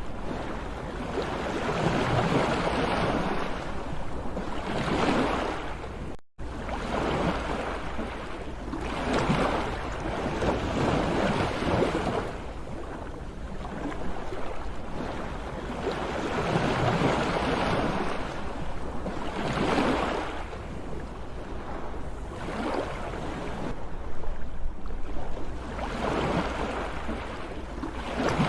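Sea surf: waves breaking and washing in, swelling and falling back every two to three seconds. The sound cuts out for a moment about six seconds in.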